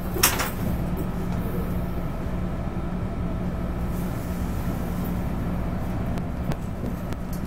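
Steady low rumble and hum of train and road traffic, with one sharp knock just after the start.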